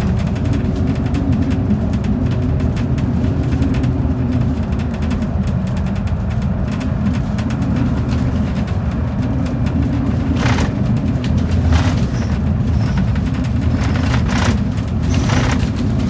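Bus on the road: a steady low rumble of engine and tyres, with a few short rattles or bumps in the last third.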